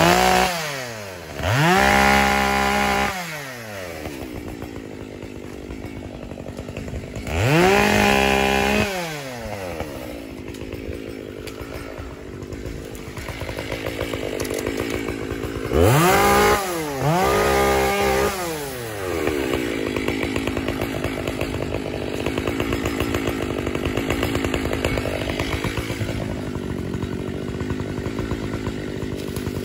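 Makita (Sachs-Dolmar) two-stroke chainsaw idling, revved up to full throttle in five short bursts of a second or two each, falling back to idle between them. The last two revs come close together; after them it idles steadily.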